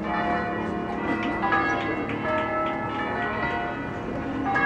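Bells ringing: several bells of different pitches struck in turn, each left to ring on over the others.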